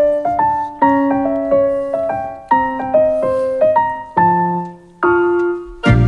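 Piano jingle: short phrases of struck notes, each dying away, with a lower note held under each phrase, opening a talk-show segment.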